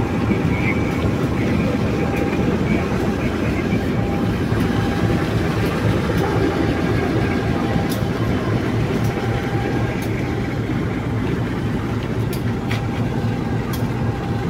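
GE CC201 (U18C) diesel-electric locomotive standing with its diesel engine idling, a steady low rumble with a faint hum running through it.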